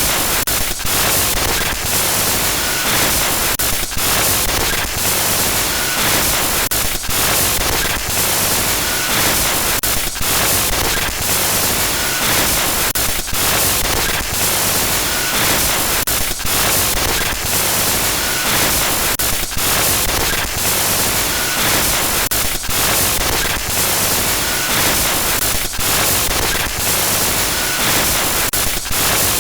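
Loud glitchy static noise, a harsh hiss across all pitches, broken by brief dropouts and stutters in a pattern that repeats about every three seconds.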